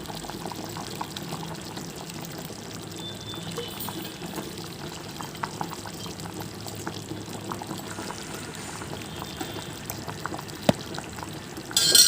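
A pot of chicken curry simmering and bubbling with small pops while spoonfuls of oil are poured in. A sharp metal clink comes near the end.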